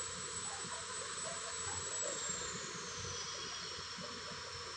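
Heavy construction machinery running at a distance: a steady hiss with a thin high whine that slides lower about three seconds in.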